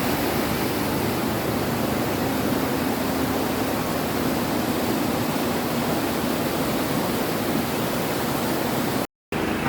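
Steady roar of a waterfall close by: an even rushing of falling water that breaks off for a moment near the end.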